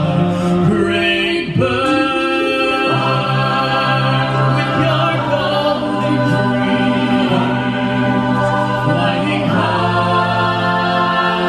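A cappella vocal ensemble singing in close harmony without instruments, holding long chords that change every couple of seconds.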